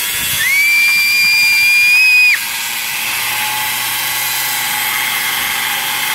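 Angle grinder with a cutting disc biting into the steel shell of a fridge compressor. A loud, high-pitched squeal runs from about half a second in to just past two seconds, then stops abruptly and gives way to a steady grinding hiss.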